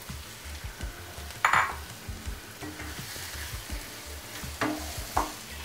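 Boneless chicken pieces sizzling in butter and onions in a nonstick frying pan as they go in and are stirred with a spatula, with a few sharp scrapes and knocks of the spatula against the pan; the sizzle grows stronger about halfway through.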